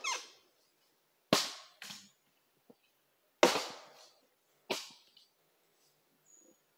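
Axe blows splitting firewood: three sharp chops spaced a second or two apart, each with a short ring, plus a lighter knock just after the first.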